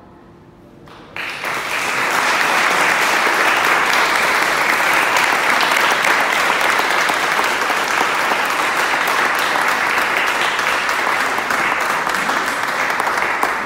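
Audience applause breaks out about a second in, as a faint last held note dies away, and goes on as dense, steady clapping.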